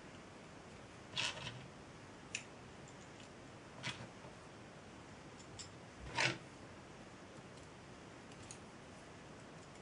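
Small, sharp metallic clicks and taps from a small part being fitted onto a stepper motor's shaft and a hex key being worked in it. There are about six of them, the loudest about a second in and about six seconds in.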